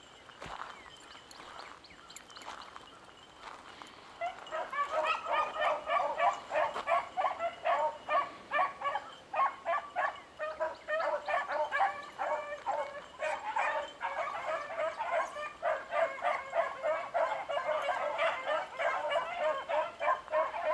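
A pack of beagles in full cry on a rabbit's track: faint for the first few seconds, then loud from about four seconds in, many short overlapping barks several times a second.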